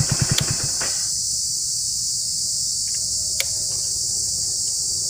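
Hero Splendor BS6 motorcycle's single-cylinder engine idling, then stopping about a second in as the ignition key is turned. Crickets chirp steadily throughout, and the key clicks twice.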